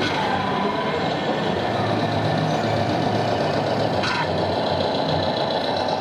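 A 1:14 radio-controlled semi truck's sound module playing a diesel engine note as the truck drives slowly, a steady low hum over the noise of a busy hall. A short hiss at the start and another about four seconds in.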